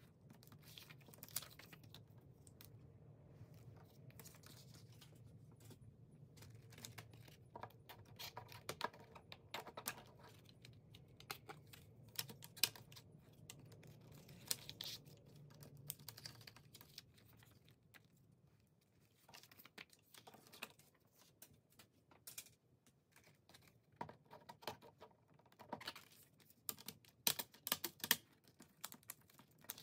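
Clear plastic CD jewel case being handled, opened and shut, with its disc and paper inserts lifted out: irregular light clicks and taps, plastic on plastic and on the table. A faint low hum underneath fades out a little over halfway through.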